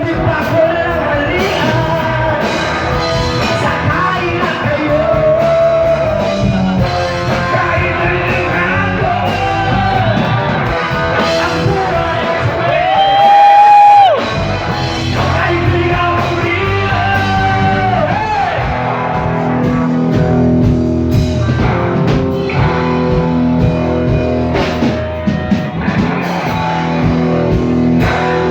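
A band jamming a rock song with a lead singer over guitar. About halfway through, the singer holds one long high note, the loudest moment, while the band thins out beneath it.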